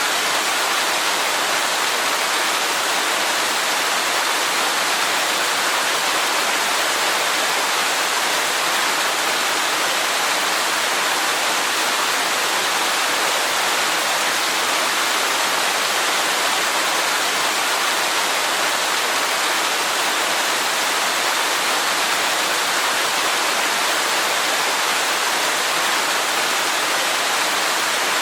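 Waterfall: a steady rush of falling water, an even hiss with little low rumble that does not change.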